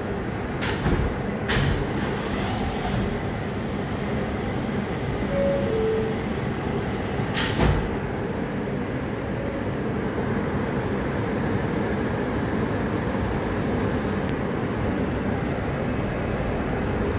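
Inside an R160A subway car: the two-note descending door chime sounds about five seconds in, and a sharp knock follows a couple of seconds later as the doors close. After that comes the car's steady running noise, a little louder as the train gets under way.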